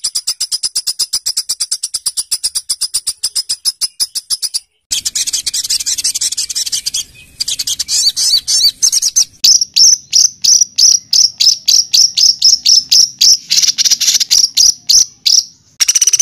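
Songbird giving rapid, harsh high-pitched repeated notes (the 'tembakan kasar' phrases of a bird-song tutor recording): a fast stutter of notes, a sudden break about four and a half seconds in, then a dense trill followed by sharp separate notes about three a second, ending in an abrupt cut.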